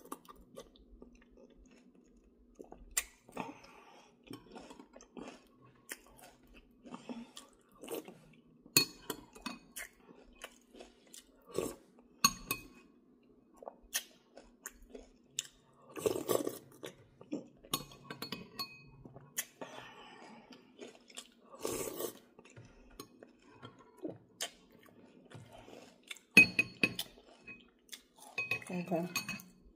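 A person eating soup: chewing and mouth sounds, with a metal spoon clinking now and then against a glass bowl.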